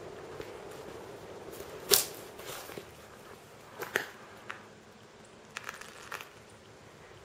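Irregular crunching footsteps and small clicks, with a sharp click about two seconds in as the loudest sound.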